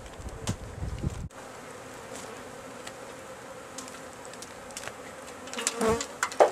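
Honeybees from an opened tree hive buzzing in a steady hum. Low handling noise in the first second stops suddenly, and a few louder, sharper knocks and close buzzes come near the end.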